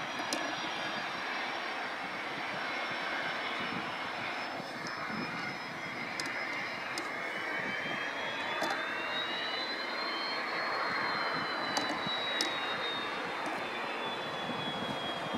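ATR 72 turboprop's two engines and propellers rolling out on the runway after landing: a steady roar with a high whine that rises toward the middle and then slowly falls away.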